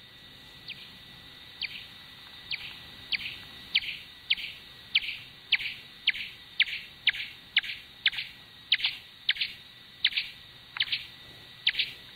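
Bat echolocation calls slowed down from ultrasound to audible pitch: short chirps sweeping downward in pitch, about one a second at first, then quickening to two or three a second as the bat tracks a moving target. A faint steady high tone runs underneath.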